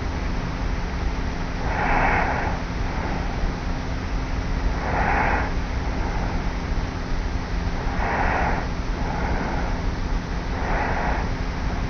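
A sleeping young woman on her back breathing with slight, regular snores, four soft breaths about three seconds apart. It is recorded close up by a cassette recorder lying on her pillow, under a steady tape hiss and low hum.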